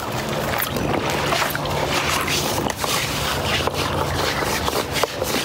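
Steady hum and rushing of a running pool circulation system, water drawn into the open skimmer, with a few light knocks as the skimmer basket is handled.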